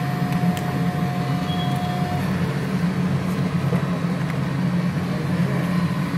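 JT-310A card printing and labelling machine running: a steady low motor hum from its conveyor drive, with a thin whine that stops about two seconds in.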